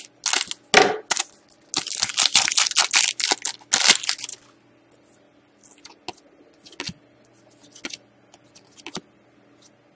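Foil trading-card pack cut open with scissors and its wrapper crinkled and torn away, a dense run of loud crackling for about the first four seconds. Then faint, scattered flicks of cards being shuffled by hand.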